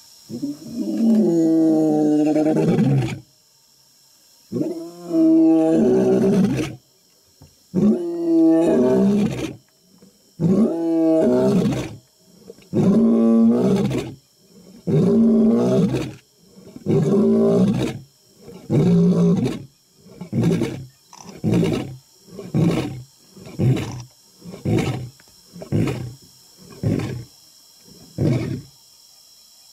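Male African lion roaring: a full bout that opens with several long roars and gives way to a run of ever shorter grunts coming faster and closer together toward the end.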